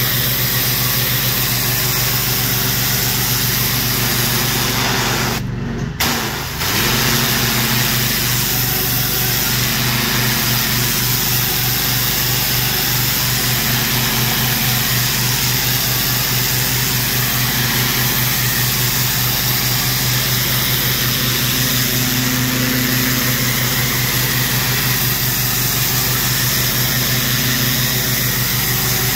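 Engine-driven pressure washer running steadily, with the hiss of high-pressure water spraying from the wand onto brick. The sound briefly cuts out about six seconds in, then resumes.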